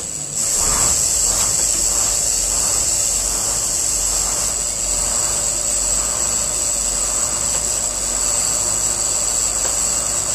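School bus engine starting about half a second in and settling into a steady idle, with a steady high hiss above it.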